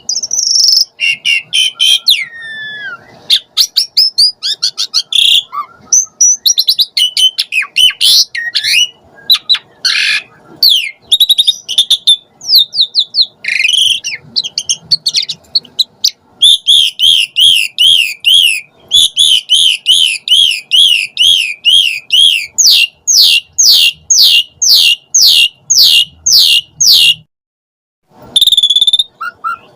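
Jalak suren (pied starling) singing loudly: a varied, fast string of whistles, glides and chattering notes, then from about halfway a quick run of repeated up-and-down notes followed by a series of sharp downstroke notes, breaking off for a moment near the end before starting again.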